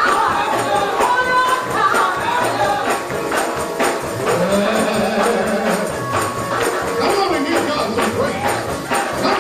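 Gospel praise music: a tambourine shaken and struck in rhythm under voices singing.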